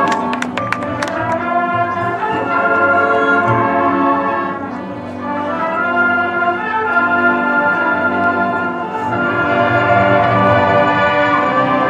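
High school marching band playing sustained brass chords over the front ensemble's marimbas and keyboard percussion. A few sharp percussion strikes come right at the start, and the music eases off briefly about five seconds in before swelling again.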